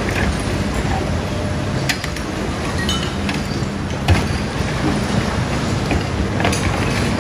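Sany SY215C 20-tonne excavator's diesel engine running under load as it works a pile of mixed waste with a grab, over the steady din of waste-sorting plant. A few sharp clanks and knocks of debris and metal stand out, the loudest about four seconds in.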